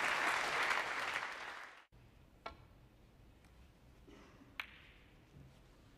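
Audience applauding, cut off abruptly about two seconds in. Then, in quiet, two sharp clicks of snooker balls about two seconds apart; the second is louder and rings briefly.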